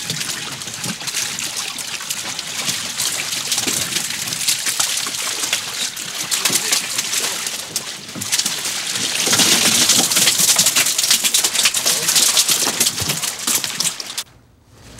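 Sea water splashing and streaming off a gillnet as it is hauled over a small boat's gunwale and fish are picked out, with many small knocks and clatters throughout. It gets louder about nine seconds in and stops abruptly shortly before the end.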